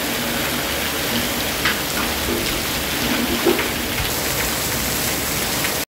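Heavy monsoon rain pouring down steadily, with runoff streaming off a roof edge and splashing, and a couple of slightly louder splashes partway through.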